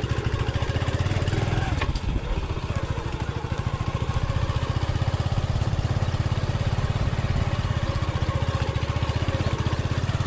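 Honda CD70's small single-cylinder four-stroke engine running at a steady speed, its firing an even rapid pulse.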